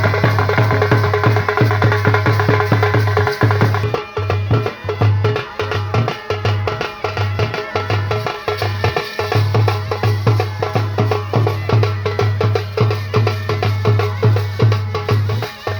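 Loud drum-heavy band baja music during a sound check, with a steady repeating bass-drum thump. About four seconds in, the melody drops out and mostly drums carry on.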